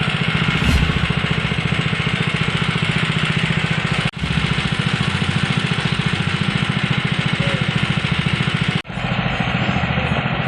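Pepper huller machine running steadily with a fast, even engine-like pulse. The sound cuts out briefly twice, about four seconds in and near nine seconds.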